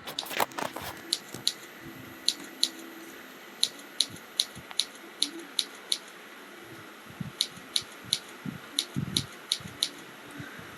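Computer keyboard keys clicking as a beginner types single letters in a touch-typing drill: separate keystrokes and short runs of a few, with uneven pauses between.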